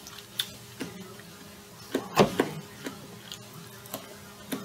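Eating sounds: a few scattered light clicks and taps of a fork on a plate and of chewing, the loudest about two seconds in, over a faint steady hum.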